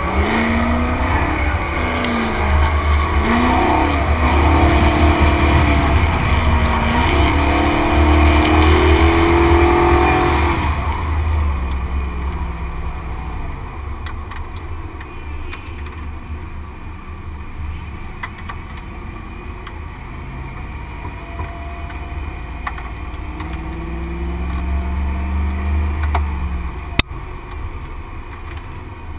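Drift car's engine revving hard in quick up-and-down swings for about the first ten seconds, then dropping to a quieter, lower running as the car eases off. Near the end the revs climb again, followed by a single sharp knock.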